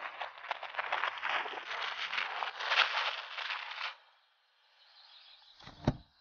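Cartoon sound effect: a dense crackling rustle of many small clicks that cuts off about four seconds in, followed near the end by a single short pop.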